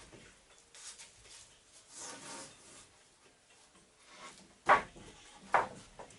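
Soft scraping and rubbing noises on and off, with two sharp knocks near the end.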